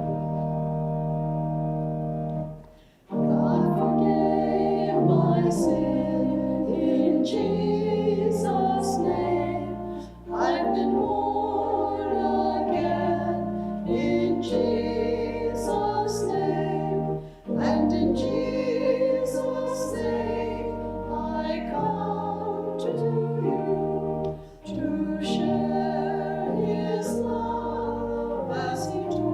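A hymn sung with keyboard accompaniment. Held chords open it, the voices come in about three seconds in, and there are short breaks between phrases roughly every seven seconds.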